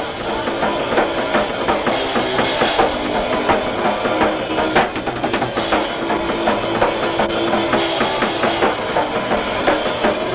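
A punk rock band playing live: distorted electric guitar, bass and a drum kit, with steady driving drum beats under sustained guitar chords.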